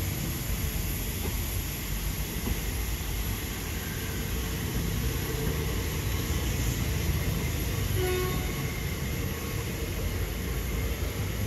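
Train running on the track, a steady low rumble. A brief, faint pitched tone sounds about eight seconds in.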